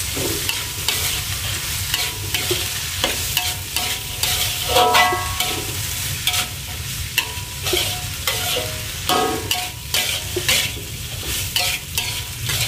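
Metal spatula scraping and knocking against a steel wok as dried shrimp and chilies are stir-fried in oil, over a steady sizzle. Some strokes ring briefly against the wok.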